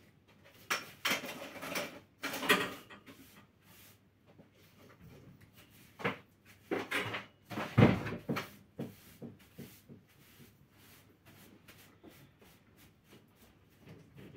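Clatters, knocks and rustling of things being handled. They come in two bursts, about a second in and again from about six to eight and a half seconds in, the loudest a dull thump near eight seconds. Scattered small ticks follow.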